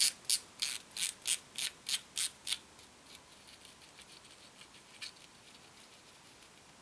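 Star drag of a Johnny Morris JMG10HA baitcasting reel being turned off its shaft, clicking about three times a second for a couple of seconds, then faint small clicks and one more click about five seconds in.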